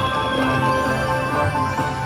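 Willy Wonka slot machine playing its game music: a melody of held notes over a steady low bass.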